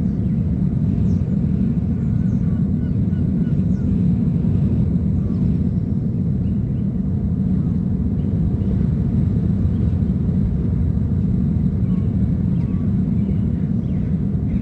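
Steady low rumble of the engines of a fleet of small boats working on the water.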